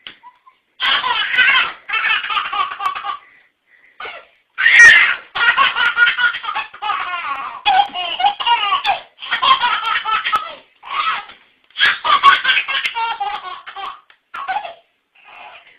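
A baby laughing in long, repeated fits, starting about a second in, with short breaks for breath between bursts.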